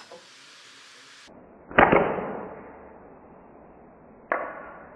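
Two sharp slingshot shots with 6 mm steel balls, about two and a half seconds apart. The first is louder and has a longer fading tail.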